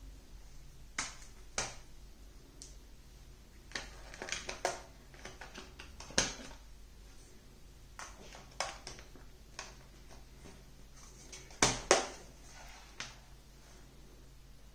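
Handling a metal SteelBook disc case: scattered light clicks and taps as discs are pressed onto the case's plastic hubs and the case is shut. The loudest sound is a pair of sharp snaps in quick succession near the end.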